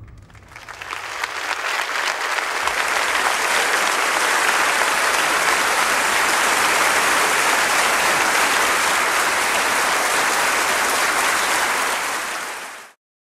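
Audience applauding, building over the first couple of seconds and then holding steady, before cutting off abruptly near the end.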